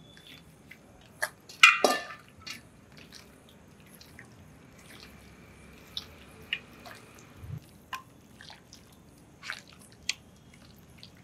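Raw chicken pieces squelching and slapping as they are mixed by hand into a thick marinade in a steel bowl: irregular wet clicks and squishes, the loudest burst about two seconds in.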